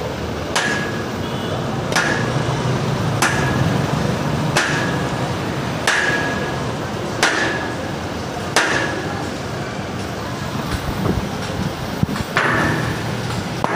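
Sledgehammer blows breaking up a concrete curb: seven evenly spaced strikes about a second and a half apart, each with a short metallic ring. After a pause, one more blow comes near the end.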